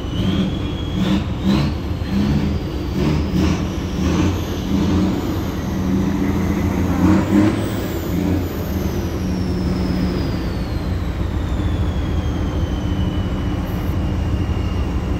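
Steady low drone of a cargo ferry's diesel engine heard from the open deck, with wind and water noise. A thin high whine slowly falls in pitch through the second half.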